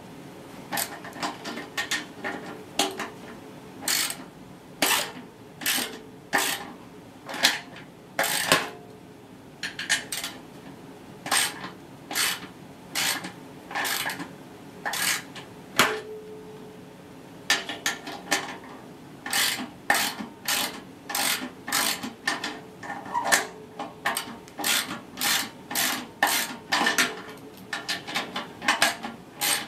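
Ratchet spanner clicking in short, repeated strokes, about one to two a second with a couple of brief pauses, as 10 mm bolts holding the washing machine drum's spider are undone.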